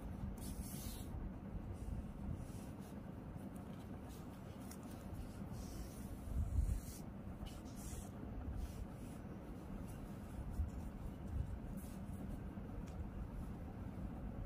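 Faint scratching and rustling of hand-sewing: needle and thread drawn through crocheted yarn and zip tape, with a couple of louder scratchy pulls, over a low steady hum.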